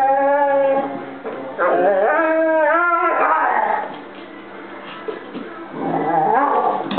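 Weimaraner puppy whining and howling in long, wavering calls, three of them with a quieter gap in the middle, as it protests over a bone held by another dog.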